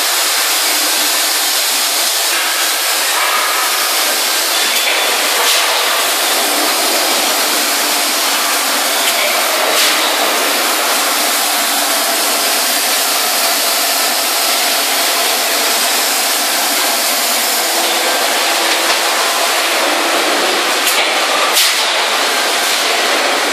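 Steady, loud machinery noise of a hot-forging press line, an even rushing din with a few faint knocks.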